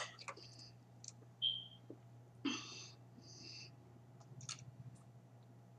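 Faint mouth and breath sounds from a woman: scattered small clicks, a brief high squeak, and two short breaths about halfway through, over a steady low hum.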